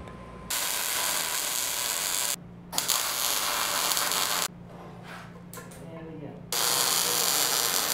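MIG welder arc crackling in three runs of about two seconds each, laying the finish welds that fix a strain gauge's mounting brackets to a steel channel. The runs start about half a second in, near three seconds and about six and a half seconds in, with quieter pauses between them.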